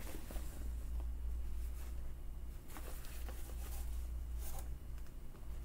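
Fabric rustling in short brushes as a pair of shorts is handled, unfolded and held up, over a steady low hum.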